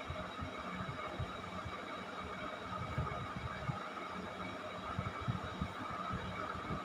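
Steady mechanical hum and hiss with irregular low thumps.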